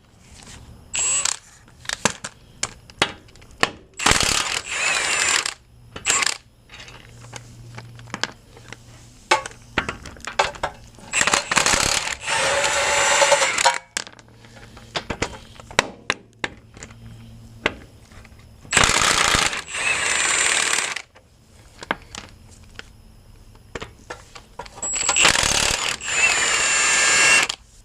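Impact wrench run in four bursts of one to two seconds each, backing out the bolts on a pickup's front suspension, with sharp metal clinks of bolts and socket between the bursts.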